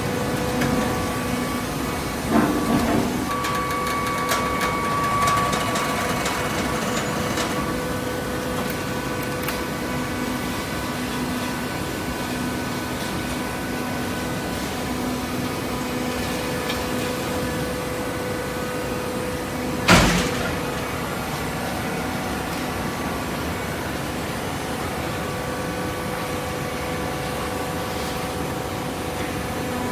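Hydraulic cardboard baler running: the steady hum of its motor and hydraulic pump, with a single loud bang about twenty seconds in.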